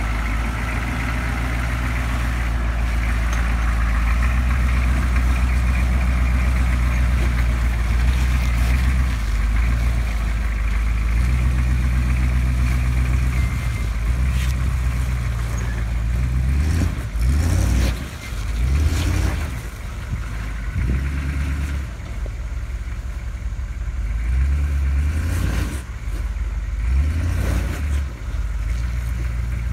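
Engine of a heavily modified 1987 Ford Ranger rock crawler running under load as it climbs over boulders. It holds a steady rumble at first, then revs up and drops back in repeated surges over the second half.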